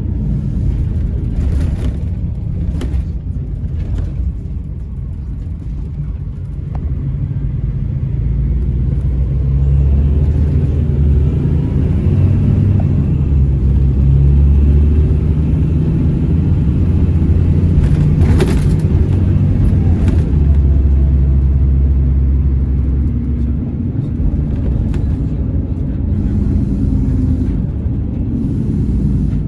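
Scania Irizar Intercentury 12.32 coach's diesel engine and drive heard from inside the passenger cabin, a deep steady rumble that grows louder for about twelve seconds in the middle under load, then eases off. A few short knocks and rattles from the body come through, the clearest about eighteen seconds in.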